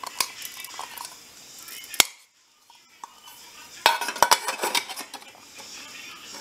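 Aluminium backpacking cook pots and lids clinking and knocking against each other as they are nested and stacked: one sharp knock about two seconds in, then a quick run of rattling clinks a couple of seconds later.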